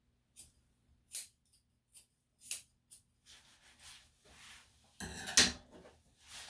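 Grooming scissors snipping in short, crisp, separate cuts, getting busier after a few seconds. A louder rattling jingle comes about five seconds in.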